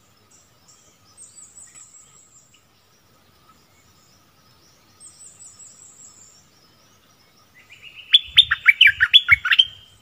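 Caged bulbul singing a loud burst of quick, sharply rising and falling whistled notes near the end. Two faint runs of thin, high chirps come earlier.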